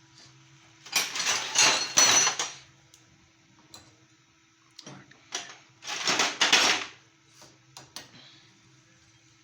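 Metal engine parts and hand tools clinking and clattering in two bursts, about a second in and again near six seconds in, with scattered single clicks in between.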